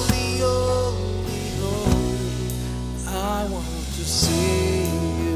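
Live Christian worship band playing: a man singing into a microphone over electric keyboard, bass guitar, acoustic guitar and drums. He holds a long wavering note near the end.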